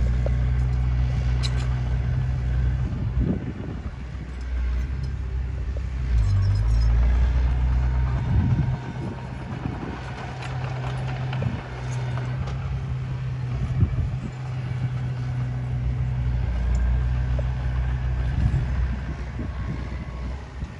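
Small crawler bulldozer's diesel engine running under load, its note rising and falling as the blade pushes soil, with a few short clanks.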